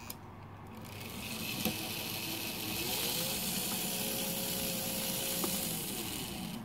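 Märklin 3090 model locomotive's electric motor and gearing running along the track, its whir rising in pitch about three seconds in as it speeds up, holding, then dropping near the end as it slows. There are two sharp clicks at the very start. With its reverse-unit spring tightened, it keeps running at speed instead of cutting out.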